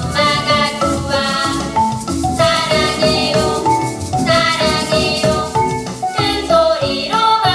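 Upbeat children's song playing, a bright melody changing note several times a second over a shaker-like rhythm.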